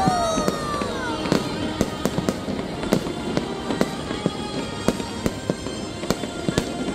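Fireworks going off in a rapid string of sharp pops and crackles. A whistle falls in pitch over the first second.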